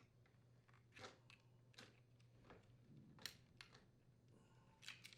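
Near silence with a faint hum, broken by about half a dozen faint, short clicks of plastic parts being handled, such as wire connectors being unplugged from a dishwasher control panel.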